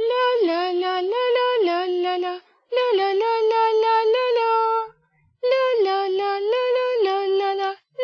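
Wordless high female vocal melody in three phrases of held notes stepping up and down, with short breaks between phrases.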